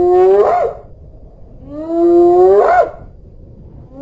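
Spotted hyena whoop calls. Each is a drawn-out call that rises slowly and ends in a sharp upward sweep, repeated about every two seconds. One call is already sounding at the start, a second comes about a second and a half in, and a third begins near the end.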